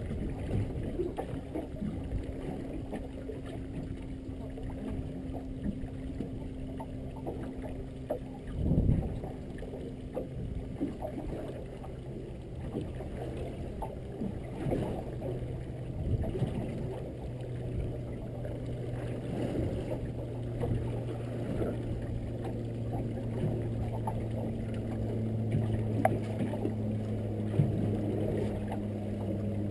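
Water slapping and knocking against the hull of a small fishing boat at sea, with one heavy thump about nine seconds in. A steady engine hum comes in about a third of the way through and grows stronger toward the end.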